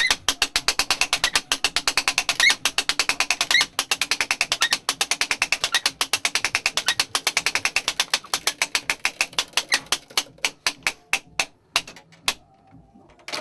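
A fast run of sharp, rattling clicks, about eight a second, from a mechanism in a church bell tower. It slows over the last few seconds and stops, with one last click near the end and a low steady hum underneath.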